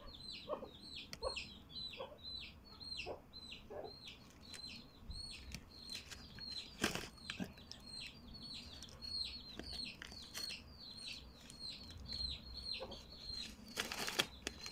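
Chukar partridge hen calling from her nest: low clucking notes repeat about every second in the first four seconds, over a steady run of high, falling chirps about three a second. Near the end there is a rustle and scrape as a hand reaches into the plastic sack she sits in.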